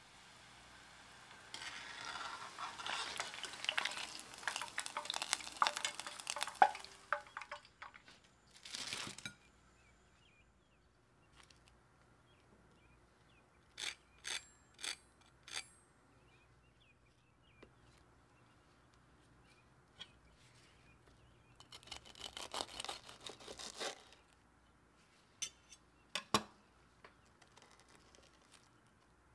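Breaded potato balls deep-frying in hot oil, crackling and sizzling for several seconds. A fork then taps the crisp breadcrumb crust four times. About two-thirds of the way in comes a short crunching as a fried ball is broken open.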